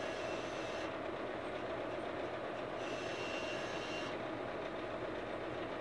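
Rigel Systems nFocus electric focuser motor driving a GSO Crayford focuser's drawtube under a full load. It whines in two short runs, one stopping about a second in and one lasting about a second near the middle, over a steady background hum.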